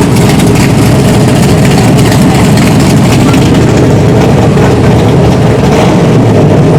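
Classic car engine idling with a loud, steady low rumble.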